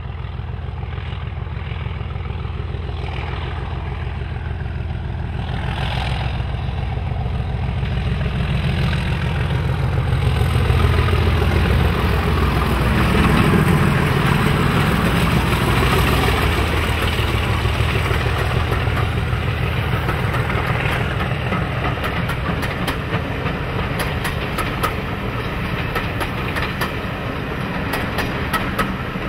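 A Class 37 diesel locomotive's English Electric V12 engine running as the train approaches and passes, swelling to its loudest about halfway through. Later the coaches roll by with a steady clickety-clack of wheels over the rail joints.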